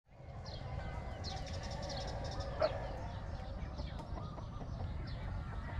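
Short, high-pitched animal chirps, repeated many times over a steady low rumble, with one sharp knock about two and a half seconds in.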